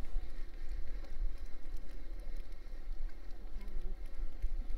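Uneven low wind rumble buffeting the microphone, with faint scattered light ticks over it.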